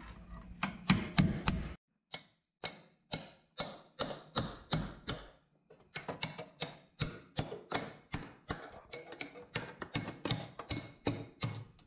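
Rapid, sharp tapping, about three to four taps a second, that cuts out completely twice for a moment.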